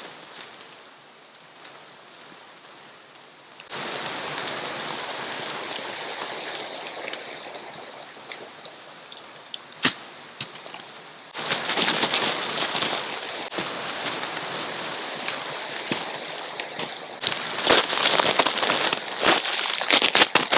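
Creek water running over small waterfalls, a steady rushing that grows suddenly louder about four seconds in and again past eleven seconds; the creek is loud with melting ice. Sharp crackling clicks near the end.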